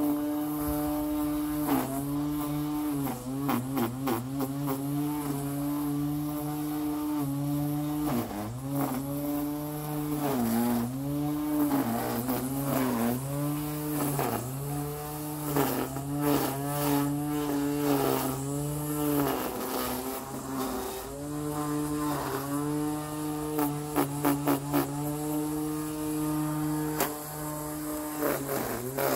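Electric grass trimmer running with a steady whine. Its pitch dips briefly and recovers again and again as the line bites into grass, with scattered sharp ticks from the cutting line.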